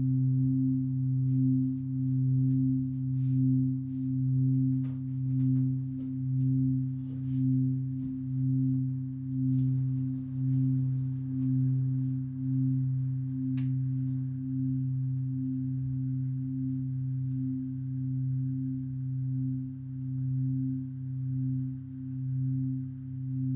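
Synthesizer drone: a low sustained tone and its octave, swelling and fading steadily about once a second, with a fainter higher tone pulsing along until about halfway through.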